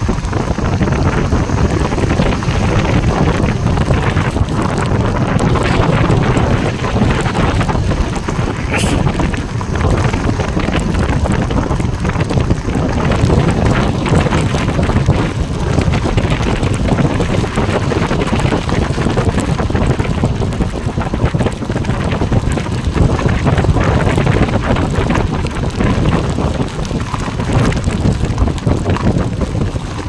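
Steady wind rush buffeting the phone's microphone from the open window of a moving car, with the car's road noise beneath it.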